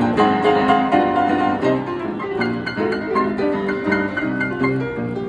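Upright piano played four hands by two pianists at once: a dense, fast flow of struck notes and chords.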